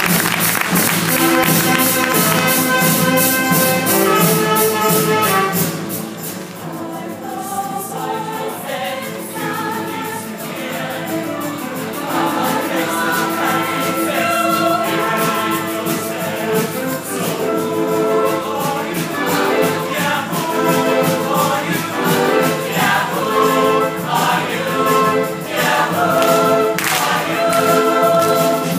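A high school show choir singing in harmony with accompaniment. A steady beat runs under the first several seconds, the music drops back about six seconds in, then builds again.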